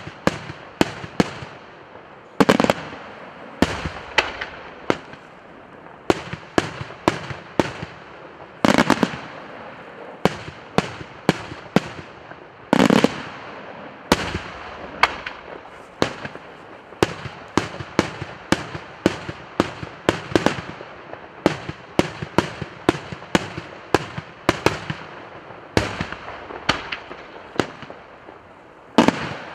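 Daytime fireworks display: aerial shells bursting in a rapid, irregular string of sharp bangs, several a second, with a heavier boom every few seconds.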